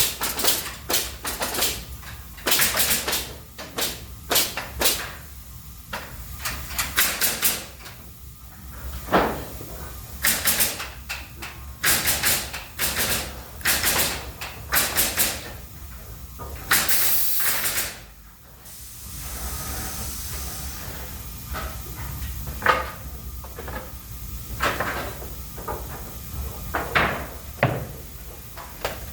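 Pallet-making machine at work: irregular sharp knocks and clacks from its moving parts, a long blast of air hiss at about 17 seconds, then a steady hiss with occasional knocks.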